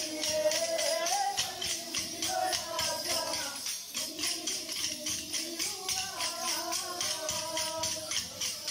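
Kolkali stick dance: short dance sticks clacked together by the dancers in a quick, even rhythm of several strikes a second, over singing that carries the tune.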